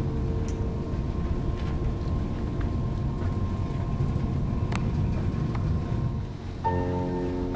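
Steady low rumble with a faint steady hum and a few light clicks; about a second before the end, steady musical tones start up.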